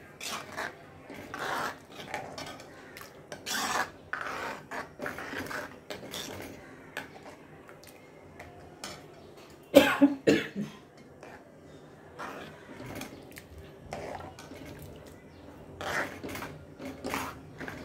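Metal ladle stirring tomato rasam in an aluminium kadhai, scraping and clinking against the pan with scattered small clicks. There is one brief, louder sound about ten seconds in.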